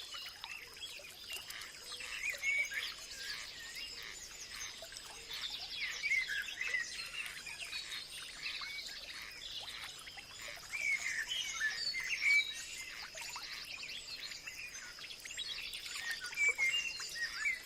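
Forest birdsong: many birds chirping and whistling together, with busier bursts of calls about two, six, eleven and sixteen seconds in, over a steady high-pitched tone.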